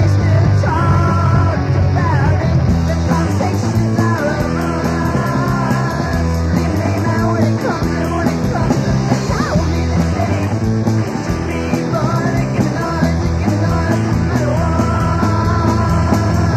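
Punk rock band playing loud and fast, with yelled vocals over the band and steady cymbal hits from about three seconds in.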